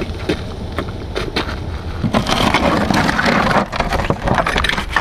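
Airsoft gas grenade going off: a rush of hissing gas lasting about a second and a half, starting about two seconds in and cutting off sharply, after a few sharp clicks and knocks. Wind rumbles on the microphone throughout.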